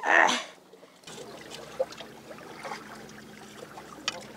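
A man's short exclamation, "ai", then a low trickle of seawater among wet rocks and seaweed, with two sharp clicks, one about two seconds in and one near the end.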